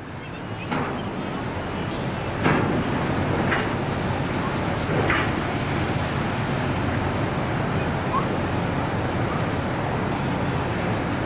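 Outdoor harbour background: steady wind noise on the microphone over a low, even rumble, with a few faint brief sounds in the first few seconds.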